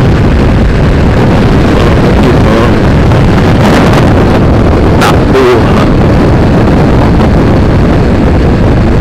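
Wind rushing over the microphone of a camera on a moving motorcycle, loud and steady, with the motorcycle's engine running underneath.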